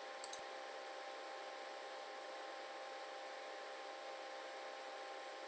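Low steady hiss and faint electrical hum of room tone, with two quick mouse clicks a fraction of a second in.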